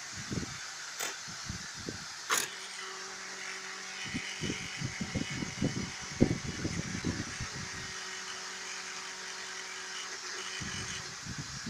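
Renault Mégane III heater blower fan, powered and being shaken: a steady hum with a dense, irregular crackling buzz through the middle, after two sharp clicks. This is the fan's fault, the buzz and crackle that was heard from under the dashboard on right turns and bumps.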